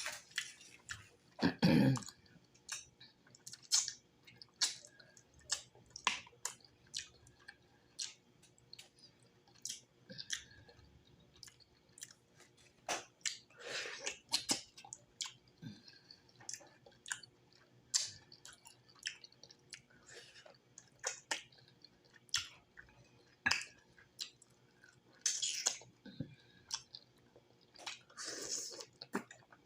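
Close-miked wet chewing and lip-smacking of stewed cow's foot: irregular short, sharp clicks and smacks, with a few longer, noisier mouth sounds.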